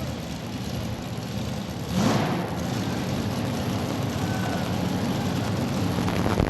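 Modified pulling tractor's engine running, with a sharp rev about two seconds in, after which it keeps running loud.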